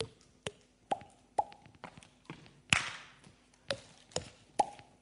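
Body percussion: a string of sharp slaps and hollow, pitched mouth pops, about two a second. The loudest hit, a crisp clap, comes near the middle.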